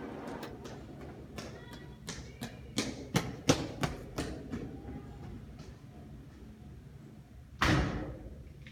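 A steady blower rush fades, then a string of sharp, irregular knocks and clicks, and near the end one heavy thud that dies away.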